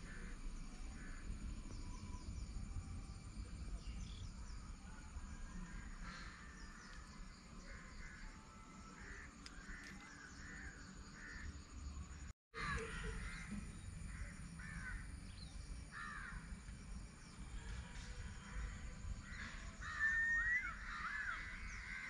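Repeated short bird calls over a low steady background rumble, with a brighter rising call near the end; the sound drops out for an instant about halfway through.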